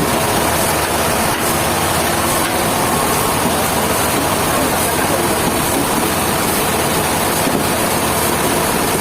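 A heavy engine running steadily, with a constant dense mechanical noise.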